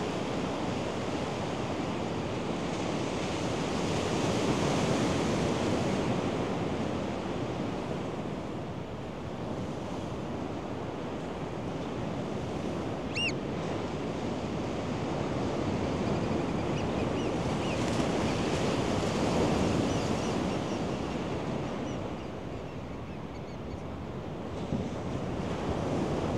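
Ocean surf breaking and washing up a sandy beach, rising in two long surges. One short bird call sounds about halfway through, with a few faint chirps after it.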